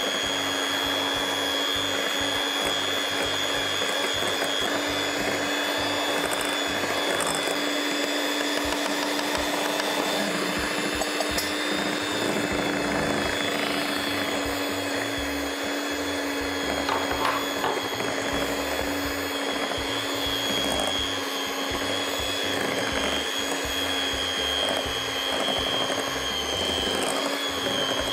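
Electric kitchen mixer running steadily at one speed, beating flour into cake batter, with a constant motor whine.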